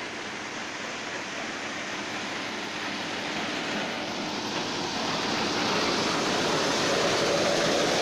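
Threshing machine running steadily as it threshes crop fed into it, with grain pouring from its outlet chute. Its noise gets louder about halfway through.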